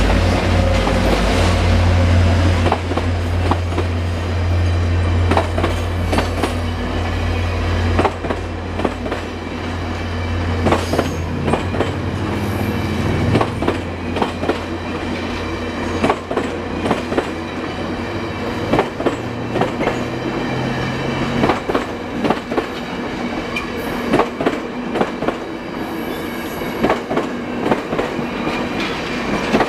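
Two VIA Rail F40PH diesel locomotives passing close by, their engines giving a strong low drone that fades after about eight seconds. A long string of stainless-steel passenger cars then rolls past with a steady clickety-clack of wheels over rail joints.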